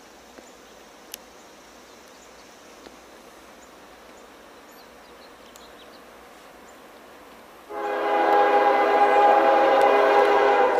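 Locomotive air horn starting suddenly near the end and held as one long, loud, steady chord of several tones, the warning blast of a train approaching a grade crossing. Before it, only faint outdoor ambience.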